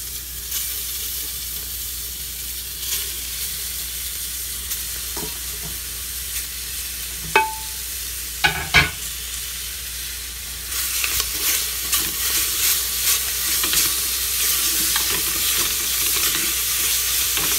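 Beef cubes sizzling in hot oil with fried onion and garlic in a metal pressure-cooker pot. A few clinks and knocks come about halfway through. From about eleven seconds in, the sizzling grows louder as a silicone spatula stirs and scrapes the meat around the pot.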